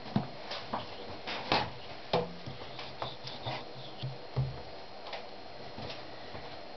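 Reassembled Mazda 323 front disc brake caliper being handled and turned over on a paper-covered workbench: a series of irregular clicks and knocks of the metal body and parts, the loudest about four seconds in as it is set down.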